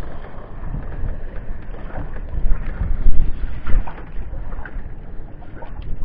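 Wind buffeting the microphone over a low rumble on a small boat at sea, with scattered short knocks and clicks.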